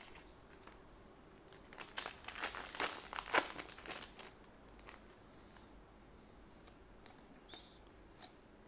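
Plastic wrapper of a Weiss Schwarz trading-card booster pack crinkling as it is torn open, for about two seconds starting two seconds in. Faint clicks of cards being handled follow.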